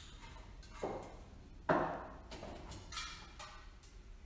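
Three sharp knocks or clunks, the middle one loudest, each ringing out briefly in a large, echoing shed.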